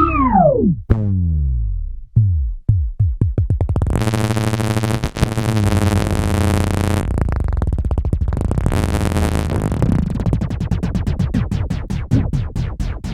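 Squier electric bass guitar, run through effects, imitating an anime sound effect. It opens with falling pitch slides, then plays repeated notes that speed up, a sustained buzzing tone in the middle, and quickly repeated plucked notes at the end.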